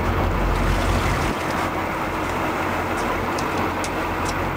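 Boat engine running steadily with a low hum, under wind and water noise. A few faint ticks come in the second half.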